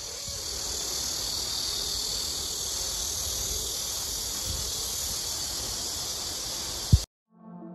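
A steady high-pitched hiss with a low rumble underneath, cutting off suddenly near the end.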